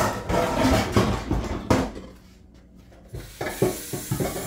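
Metal pots and pans clattering as a big cooking pot is dug out. There is a dense rattle for about two seconds, then a quieter moment, then a few separate knocks near the end.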